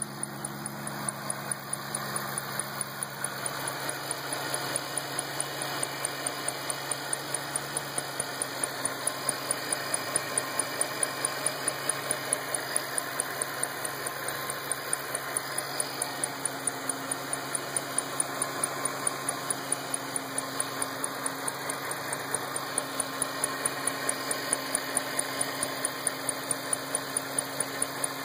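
2008 Shelby GT500's supercharged 5.4-litre V8 idling steadily, with a sharp tick repeating evenly a few times a second over the engine drone.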